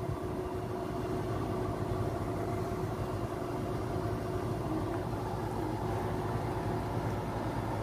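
Engine of a Plasser 12-tonne rail crane running steadily at low revs, a constant rumble with a steady whine over it.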